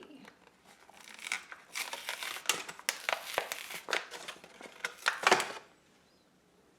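Plastic-and-cardboard blister packaging of a Hot Wheels diecast car being crinkled and torn open, a dense run of crackling and ripping that stops about a second before the end.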